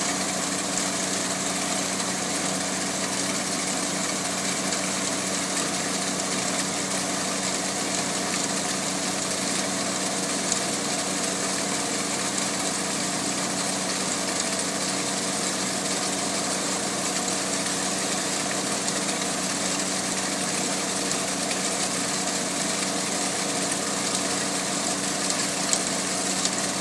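An engine running steadily at idle, its even drone unchanging throughout, with a faint click or two.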